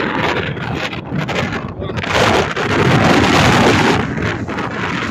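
Wind buffeting the phone's microphone as a steady rushing noise, with a stronger gust from about two seconds in that eases near four seconds.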